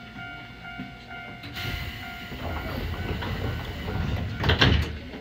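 Sliding passenger doors of a Nankai 1000 series train closing at a station stop: a rising hiss of air from about a second and a half in, ending in a loud thump as the doors shut near the end.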